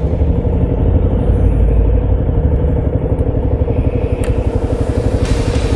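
Kawasaki KLR650's single-cylinder engine running steadily, with no change in pitch.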